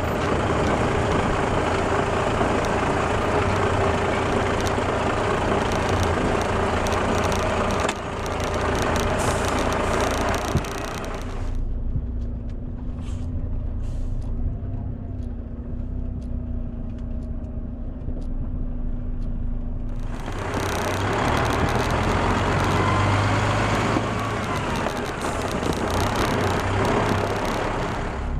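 Off-road vehicle driving on a rough gravel road: engine running under loud road noise from the tyres and body. The road noise drops off for about eight seconds in the middle, leaving a steady engine hum, then comes back loud.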